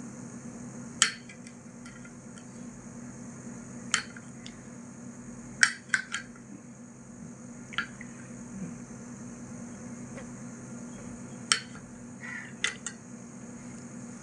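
A metal spoon clinking against a ceramic plate as food is scooped and eaten: about eight sharp, separate clinks at irregular intervals, some in quick pairs.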